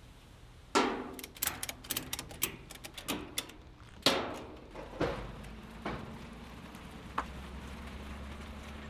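Ratchet tie-down strap being cranked tight: a run of quick metallic clicks for the first few seconds, then four single louder clacks about a second apart.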